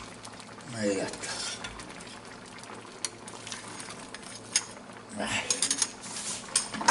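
A metal mesh strainer and ladle clink and scrape against a pan of simmering fish broth, with a steady low bubbling underneath. Sharp metallic clicks come now and then, bunching into a quick run of clinks near the end.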